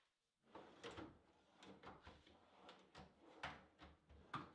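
Faint, scattered knocks and scrapes of drawer slides and plywood spacers being handled and fitted inside a plywood cabinet carcass, with two slightly stronger knocks near the end.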